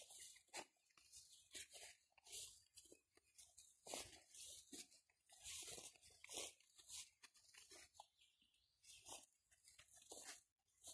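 Faint, irregular rustling and swishing of grass under footsteps as the handler and a small dog move through a field, a few soft bursts every second.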